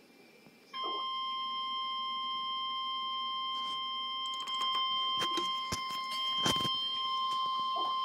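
NOAA Weather Radio 1050 Hz warning alarm tone, a steady, shrill beep that starts abruptly about a second in and holds, played through a computer speaker from an online weather-radio stream. It is the alert tone that comes before a warning broadcast. A few clicks and knocks sound midway.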